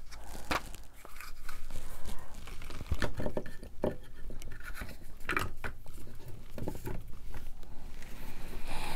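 Paper and craft materials being handled on a work surface: light rubbing and scraping with several short taps scattered through.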